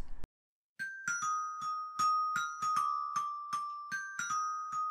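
A short outro jingle of bell-like mallet notes, glockenspiel-style. About a dozen quick notes start just under a second in, after a brief pause, and each rings briefly.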